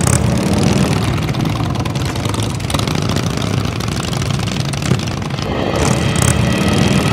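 Engines of several large touring motorcycles running as a group rides past, a steady low engine sound.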